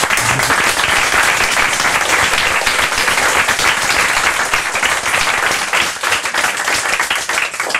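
Audience applauding: many people clapping at once, easing off a little near the end.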